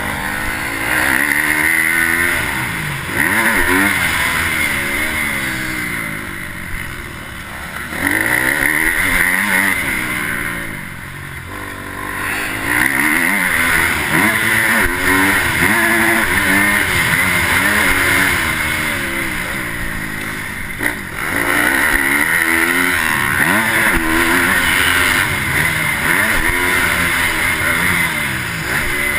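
Motocross dirt bike engine, heard from the rider's helmet, revving up and down through the gears while being ridden hard around a dirt track, with the throttle shut off briefly a few times, about 6, 11 and 20 seconds in.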